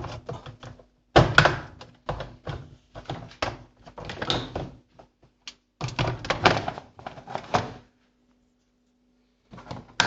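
Knocks and clunks of a semi-automatic washing machine's plastic panel parts being handled and worked loose, in short clusters with brief pauses, then a pause of about a second and a half near the end.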